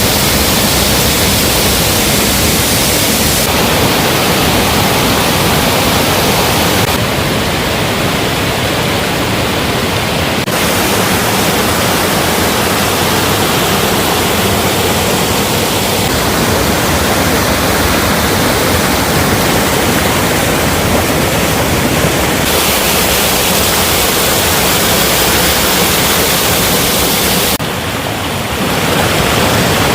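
Waterfall: a loud, steady rush of falling water, its tone shifting suddenly several times.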